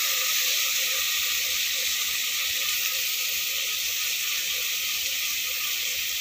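Onions, green chillies and tomatoes frying in oil and ghee in an open pressure cooker: a steady sizzle.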